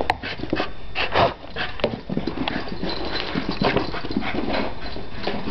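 A soft coated wheaten terrier running around, her paws and claws making quick, irregular clicks and scuffs on the floor.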